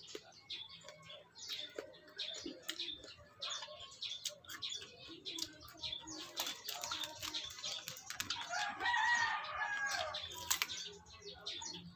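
Biting and chewing a raw cucumber, a run of crisp crunches and mouth clicks. A rooster crows once from about eight and a half seconds in, the loudest sound here.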